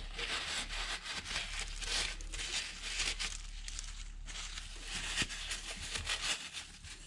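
Scratching and scraping at flaking carbon deposits on a BMW N52 cylinder head: a dense, continuous run of small scrapes and clicks.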